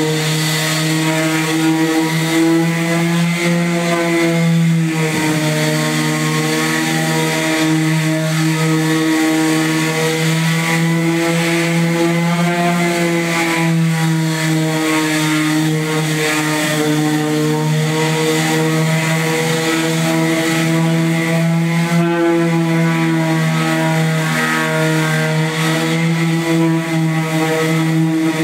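Electric orbital sander running against a truck bed floor. Its motor makes a steady hum that wavers slightly in pitch as it is worked across the surface.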